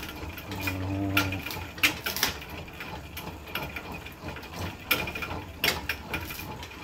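Pedal-powered metal lathe from the 1870s running, its gearing and treadle mechanism clicking and clattering irregularly while the cutting tool takes chips off a turning metal workpiece. A brief low hum comes about a second in.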